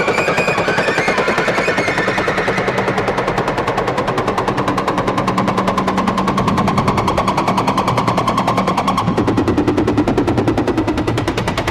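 Electronic music: a rapid, even pulse of about ten beats a second under sustained tones. A lower tone joins about nine seconds in.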